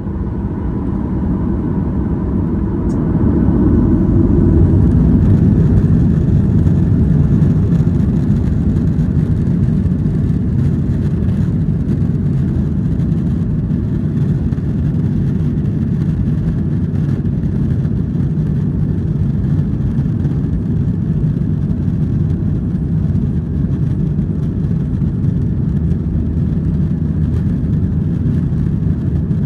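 Boeing 737-900ER's CFM56-7B jet engines at high thrust, heard inside the cabin: a loud, deep, steady noise that builds over the first few seconds and then holds, typical of the takeoff roll and initial climb.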